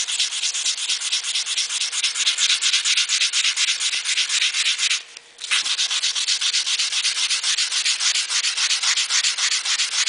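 240-grit sandpaper rubbed by hand in quick back-and-forth strokes on stainless steel car trim, a steady run of rasping strokes with a short pause about five seconds in. It is the 240 stage of a dent repair, sanding out the 150-grit scratches.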